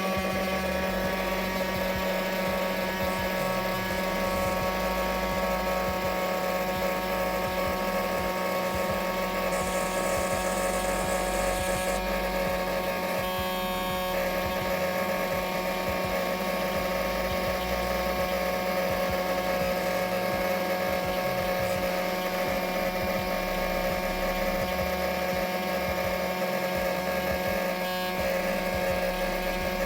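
Small electric motor of a homemade vacuum cleaner running at constant speed, a steady hum with a high whine.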